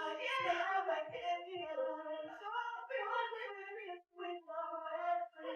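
A high voice singing a melody without clear words, with a few soft low thumps under it in the first couple of seconds.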